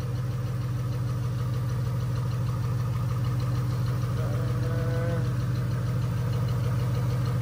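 2018 Ford Mustang GT's 5.0-litre Coyote V8, fitted with an aftermarket cold-air intake, idling steadily under the open hood.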